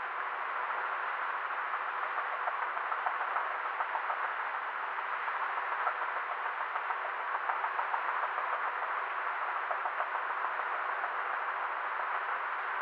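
Helicopter in flight heard from inside the cabin: a steady, muffled rushing noise of rotor and engine with a faint fluttering.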